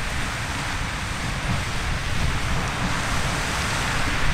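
Riverside Geyser erupting: a steady rushing hiss of water and steam jetting from its cone, with a low rumble underneath.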